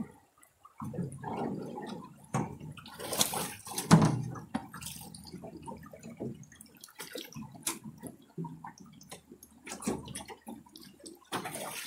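Shallow river water splashing and sloshing, with irregular knocks and thumps; the loudest knock comes about four seconds in.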